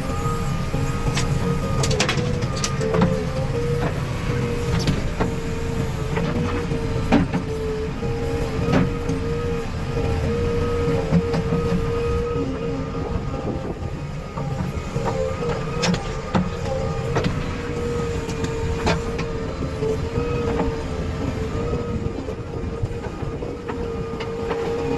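A JCB 3DX backhoe loader's diesel engine running under load, with a steady high whine over a low rumble. Scattered sharp knocks and clanks come through it.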